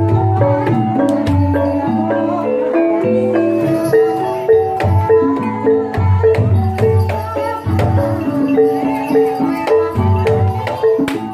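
Javanese gamelan music for ebeg: mallet-struck melodic instruments play a busy run of short repeated notes over drum strokes, with sharp percussive clicks in between.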